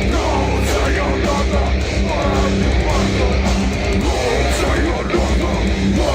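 Metalcore band playing live: loud distorted electric guitars over a heavy, steady low end.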